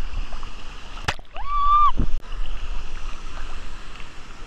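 Wave-pool water sloshing and splashing against a waterproof camera held at the surface, with sharp splashes about a second in and again at two seconds. Between them comes a brief, steady high-pitched sound.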